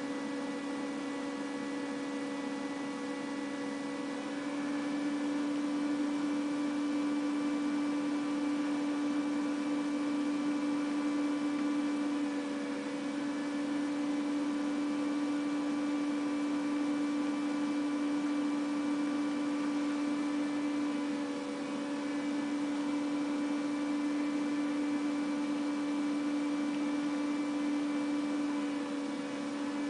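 A steady electrical hum: one constant tone with fainter overtones above it, a little louder from about four seconds in.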